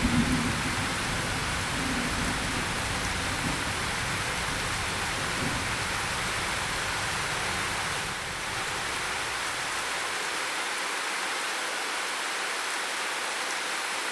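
Steady rain falling. A low rumble of thunder dies away over the first few seconds.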